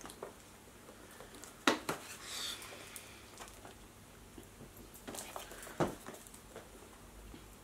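Small cardboard cosmetic boxes being picked up and handled, with a few light knocks and a brief rustle.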